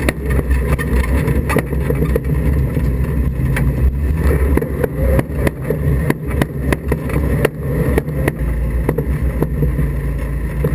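An autograss racing Mini's engine running at low revs, heard from inside the caged cab as the car rolls slowly over rough ground. The bodywork and cage give irregular knocks and rattles throughout.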